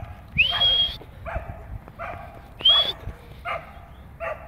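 A dog barking in a string of short yaps, about one every second. Twice, about half a second in and near the three-second mark, it gives a high, rising yelp that is the loudest sound.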